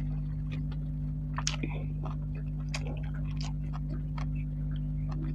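Close-up chewing of a mouthful of buffalo curry and rice: irregular wet mouth clicks and smacks, with a steady low hum underneath.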